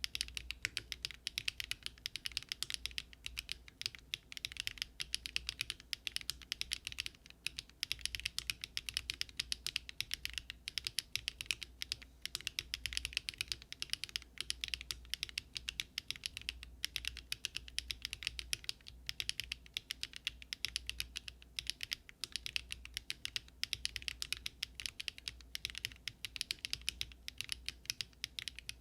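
Continuous fast typing on a Daring Run Polygon-7 custom mechanical keyboard built with Luminkey Astral switches, no foam and an aluminium plate: a steady stream of crisp key clicks.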